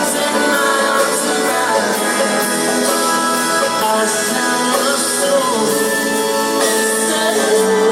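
Live band performance of a slow rock song: a full band playing steadily, with a lead line that slides and bends between notes.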